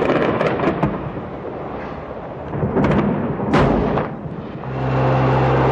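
Rapid cracks of gunfire over the night bombing of Baghdad, then an explosion about three and a half seconds in with a long rumble. A low, sustained music drone comes in near the end.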